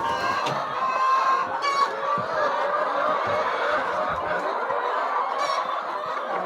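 A flock of chickens clucking, many birds calling over one another in a steady chatter.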